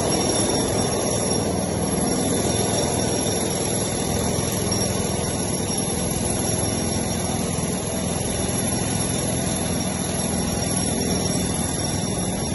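Steady machine drone, even and unbroken, strongest in the low range, with thin constant high-pitched whines above it.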